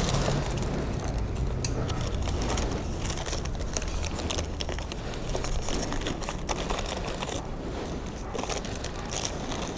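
Paper envelopes crinkling and rustling in the hands as one is torn open and the letter pulled out, a run of many small crackles. A low hum sits underneath in the first couple of seconds and fades.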